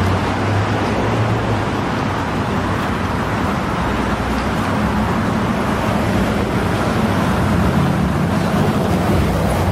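Steady traffic noise, with a low engine hum running underneath.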